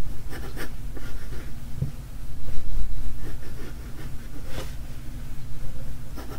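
Graphite pencil sketching on paper: short, scattered scratching strokes over a low steady rumble.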